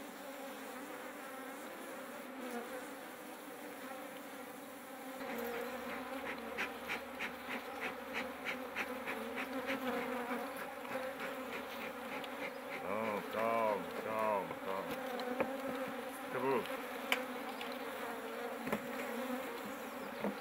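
Western honeybees buzzing steadily around an open hive, with the buzz rising and falling in pitch about two-thirds of the way through as bees fly close past. A run of quick clicks comes in about five seconds in, and a few knocks sound in the second half.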